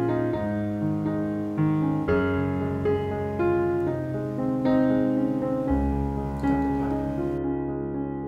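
Background piano music: slow single notes and chords, with a held low bass note coming in past the middle.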